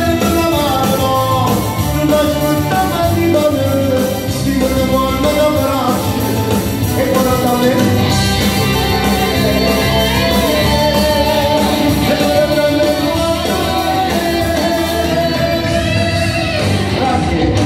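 A man singing live into a handheld microphone, amplified through a PA loudspeaker over backing music with guitar, his sung melody held and bending over a steady accompaniment.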